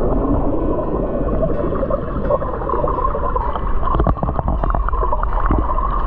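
Flowing creek water heard through a camera held underwater: a muffled, steady rushing and gurgling, with a run of sharp clicks and knocks a little past the middle.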